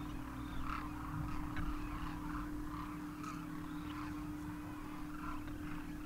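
Faint, scattered calls of a Demoiselle crane flock, with a steady low hum underneath.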